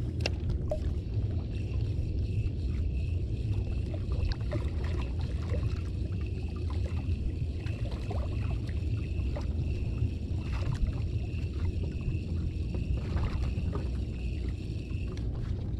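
Wind rumbling on the microphone and water lapping against a kayak's hull, with a few small clicks. A faint steady high whine comes in about a second and a half in and stops near the end.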